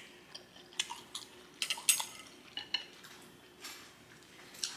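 Chopsticks clicking and tapping against a dish of food, a string of sharp light clicks with short pauses between them.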